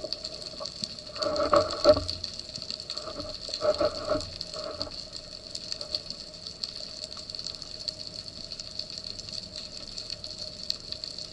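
Water noise as picked up by a submerged camera, with two brief louder gushing swells about a second in and about four seconds in.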